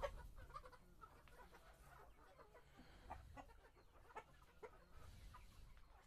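Faint, scattered clucking from a flock of chickens.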